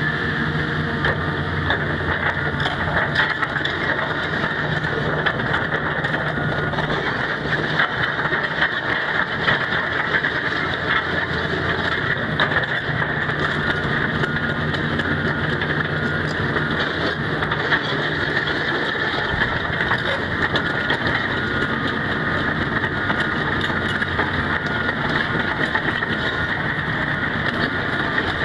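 Hitachi ZX350LC-3 crawler excavator's diesel engine running steadily while the machine travels on its steel tracks, with a dense clatter of clicks and rattles over the engine sound.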